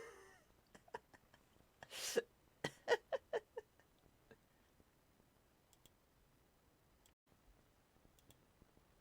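Close-miked mouth sounds from a voice-over recording: a sharp breath about two seconds in, then a quick run of five or six short clicking mouth noises. After that, quiet room tone.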